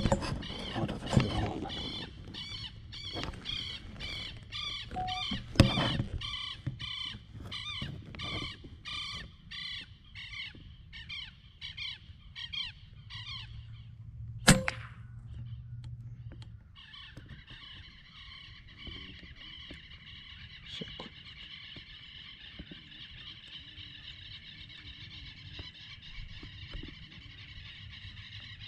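A bird calls over and over, about two calls a second, for roughly the first half. About halfway a PCP air rifle fires a single sharp shot, the loudest sound. After that, a steady, wavering high-pitched calling runs on.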